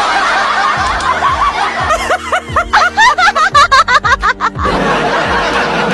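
Background music with a burst of snickering laughter: a run of quick rising yelps, several a second, from about two seconds in until nearly five seconds in.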